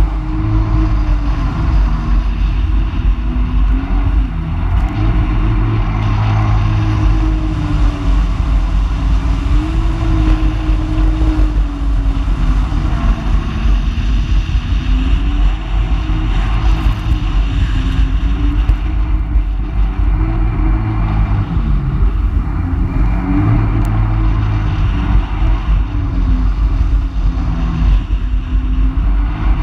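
Personal watercraft engine running at speed, its pitch rising and falling every few seconds as the throttle changes, over a steady rush of water.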